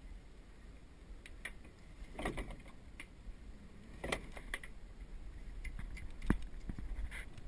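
Sailboat rigging hardware clicking and rattling as lines are hauled through the blocks and cleats, a string of irregular small knocks with the sharpest about six seconds in, over a low steady rumble.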